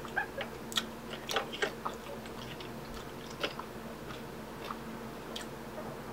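Close-up open-mouthed chewing of a garlic knot: wet smacks and clicks, several a second at first, thinning out after about two seconds. Her lips are swollen from fresh filler, so she can't chew with her mouth closed.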